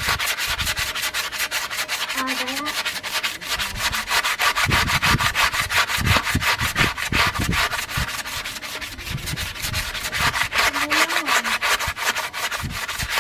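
Hand sanding of an alloy car wheel's kerb-damaged rim: rapid, even back-and-forth rubbing strokes, about six or seven a second, smoothing out the ground-down damage.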